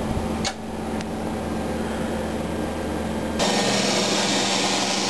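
727 HF radio antenna tuning unit running its tuning cycle: a steady electrical hum with a held tone and a single click about half a second in. About three and a half seconds in it gives way to a louder, steady hiss with a low hum under it as the aerial is tuned.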